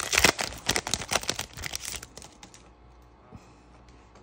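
Foil trading-card pack crinkling and crackling as it is torn open by hand, a dense rustle that stops about two and a half seconds in, followed by a few faint clicks.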